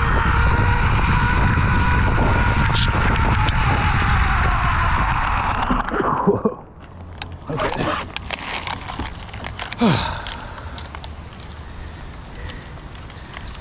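Zipline trolley pulley rolling along the steel cable, a whine that rises a little and then falls as the rider slows, over wind rumble; it stops about six seconds in, followed by scattered clicks and scrapes.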